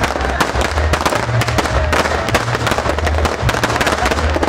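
Firecrackers and fireworks crackling and banging non-stop, many sharp cracks a second.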